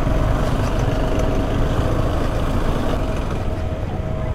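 Motorcycle running at road speed, with wind rushing over the microphone as a steady, dense noise and a faint steady engine tone beneath.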